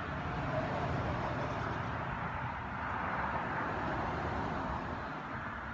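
Steady hum of a mass of honeybees buzzing from an opened nuc box as its frames are handled.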